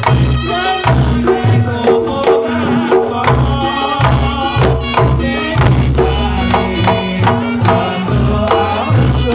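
Reog Ponorogo gamelan music: a Javanese kendang drum played fast by hand, with a large hanging gong and small kenong pot gongs ringing along in a steady, driving rhythm.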